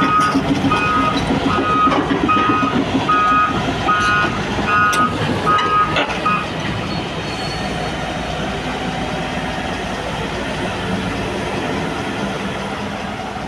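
A heavy machine's backup warning alarm beeps about once every 0.8 seconds and stops about six seconds in. A diesel engine runs steadily underneath, and a sharp metallic clank comes near the end of the beeping.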